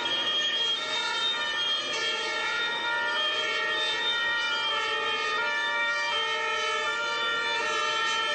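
Sirens of several fire engines sounding together: steady tones that step back and forth between two pitches, overlapping one another.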